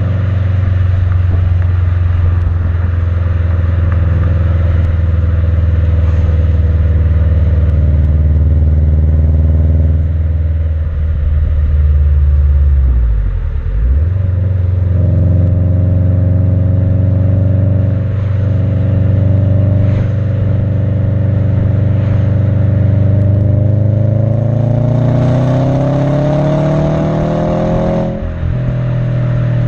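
Exhaust note of a Subaru WRX STI's turbocharged flat-four through an Invidia Q300 cat-back exhaust, heard right at the tailpipes while driving. The engine holds a steady note, sags briefly about halfway through, then revs up with a rising pitch for about four seconds near the end and drops sharply.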